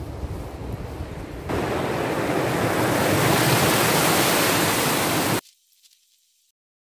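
Wind noise on the microphone: a low rumble that jumps to a louder, steady rushing hiss about a second and a half in, then cuts off suddenly about five seconds in, leaving near silence.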